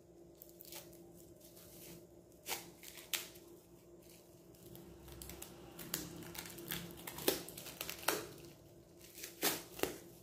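Clear plastic wrap crinkling and tearing in irregular crackles as it is pulled off a packaged flower-shaping mold by hand.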